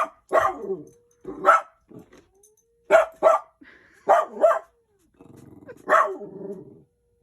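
A dog barking in short, sharp barks, about eight of them, several in quick pairs, with a low growl near the end. The barking is aimed at the household cat.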